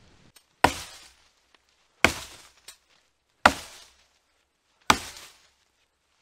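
An axe chopping into a fallen branch: four hard strikes, about one every second and a half, each dying away quickly.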